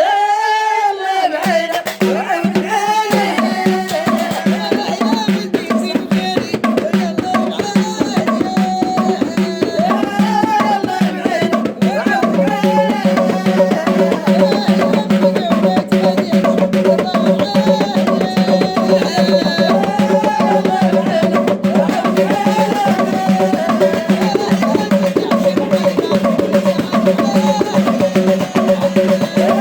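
Lively folk-style music with fast, steady hand-drum percussion under a repeating melody over a held low note.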